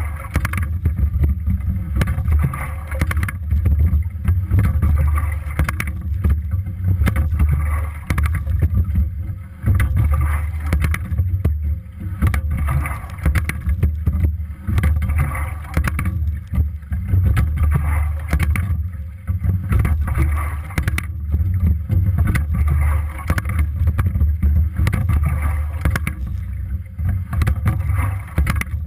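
Single scull being rowed: water rushing past the hull and oars with a low rumble of wind on the microphone, swelling and easing with each stroke about every two seconds, and scattered clicks.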